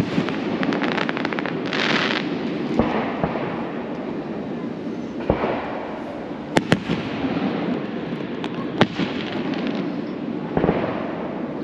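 Aerial fireworks shells bursting overhead in sharp bangs every couple of seconds, one pair coming close together, with a run of crackling stars near the start.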